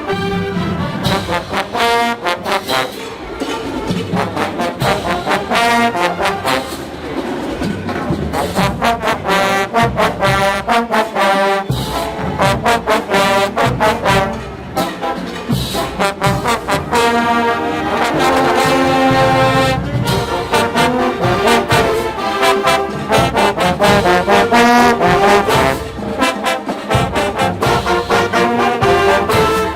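College marching band playing a brass-heavy tune, trombones and trumpets carrying the melody over a steady drum beat.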